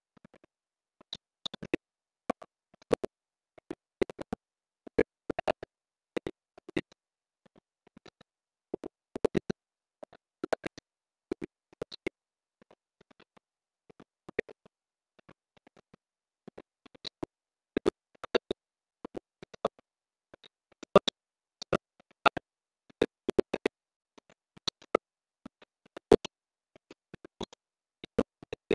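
Computer keyboard keystrokes: irregular sharp clicks coming in small clusters, with short gaps between them.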